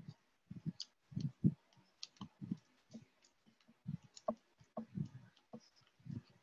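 A mixing stick knocking and clicking against the inside of a clear glass as two-part RTV mold rubber is stirred, in irregular taps a few times a second.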